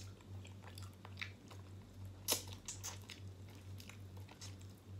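Close-up eating sounds: a man biting and chewing a piece of chicken held in his fingers, with scattered small crunchy clicks, the sharpest about two and a half seconds in. A faint steady low hum runs underneath.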